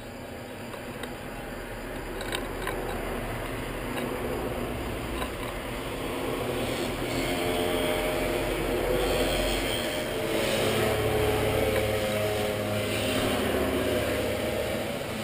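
An engine sound growing steadily louder as it approaches, with a low hum that strengthens over the second half.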